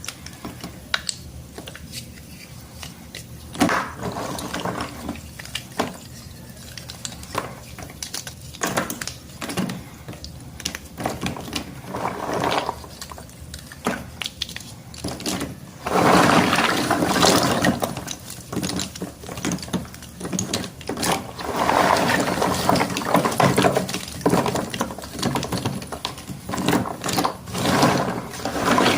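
School chalk sticks sloshed about in water, with frequent sharp clicks and knocks of chalk against chalk and the container. Just past the middle the sound grows louder and denser, with wet splashing and snapping as the soaked sticks are broken.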